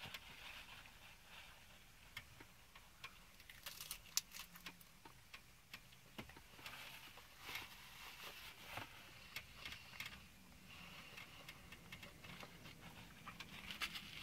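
Near-quiet car interior with faint scattered clicks and brief rustles of paper napkins while two people eat.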